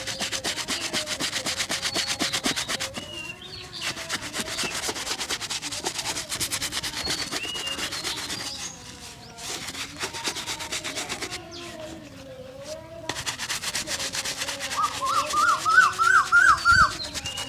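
A shoe brush scrubbing a leather shoe in quick back-and-forth strokes, with a few short pauses. Near the end comes a loud run of about seven short rising chirps.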